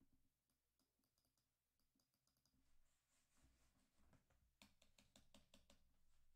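Near silence with faint clicks, scattered at first, then a quick run of about eight clicks around five seconds in.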